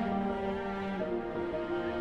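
Background music with held chords that change about once a second.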